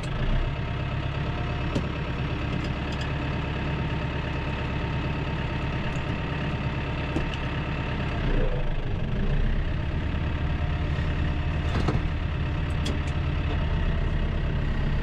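Tractor diesel engine running steadily, heard from inside the cab, with a few light clicks. About eight seconds in, as the controls beside the seat are worked, the engine's note shifts.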